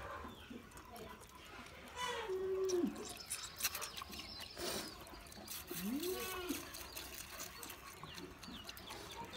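Goat kids bleating twice: a short held call that drops at its end about two seconds in, and a rising-then-falling call about six seconds in.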